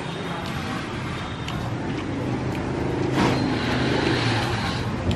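Street traffic: a motor vehicle's engine running close by, getting louder about halfway through and then easing off.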